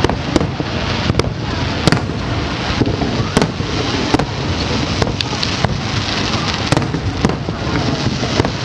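Fireworks display: a string of sharp bangs at irregular intervals, roughly one or two a second, over a continuous dense wash of noise from the ongoing bursts.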